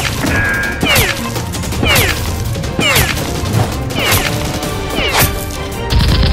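Dubbed action sound effects over background music: a sharp hit with a falling pitch sweep repeats about once a second. Near the end comes a heavy burst of a dubbed gunshot effect, timed to a toy blaster's edited-in muzzle flash.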